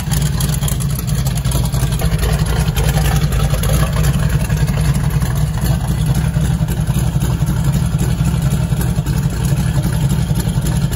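Ford flathead V8 engine running steadily at idle, a low, even exhaust sound with no revving.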